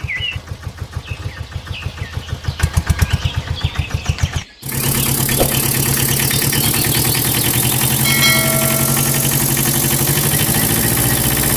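Auto-rickshaw engine running with a fast, even putt-putt that grows louder, broken off about four and a half seconds in; then a louder, steady engine running for a small pickup truck.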